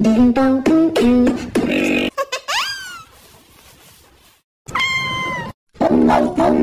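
A quick string of short pitched vocal sounds and sound effects, with a whistle-like glide that rises then falls about two and a half seconds in and a drawn-out meow-like call about five seconds in, broken by two brief silences.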